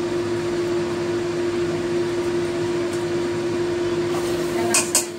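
Steady fan-like hum with one held tone while a wok heats on a gas stove. Near the end come two short clatters as chopped salted mustard greens are tipped from a bowl into the dry wok.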